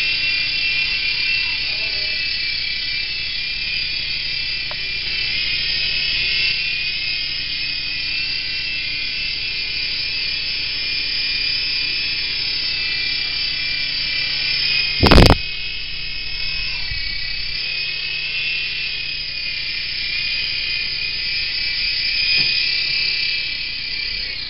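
Air Hogs Sharpshooter toy RC helicopter's small electric motor and rotors whining steadily in flight. About fifteen seconds in there is a sudden loud noise lasting a fraction of a second, and at the end the whine drops in pitch as the helicopter comes down on the carpet.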